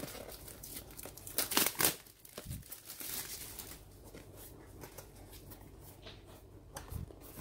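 Cardboard and plastic packaging of a Google Home Mini being handled: rustling and crinkling, with a cluster of louder, sharp rustles about one and a half to two seconds in, then softer, irregular handling noise.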